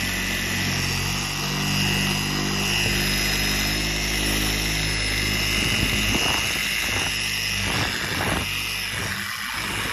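Bauer electric polisher running on low speed, its foam pad cutting Meguiar's compound into a motorcycle's painted fairing. A steady motor hum with a high whine, growing uneven after about six seconds.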